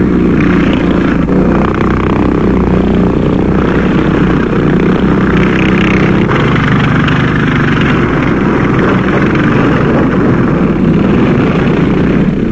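Motor sled's 8-horsepower gasoline engine running steadily.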